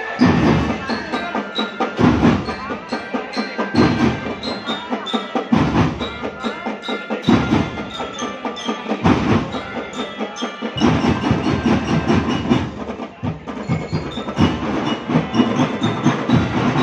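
School marching drum band playing: drums beat out a driving rhythm with heavy accented hits about every two seconds, and high, bell-like mallet notes ring over them. It starts right at the beginning.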